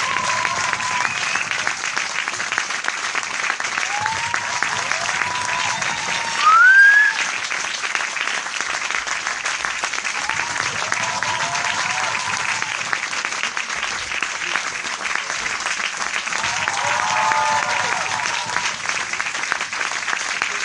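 Crowd applause, a dense steady clapping, with short whooping cheers from the audience every few seconds. A loud rising whistle cuts through about six and a half seconds in.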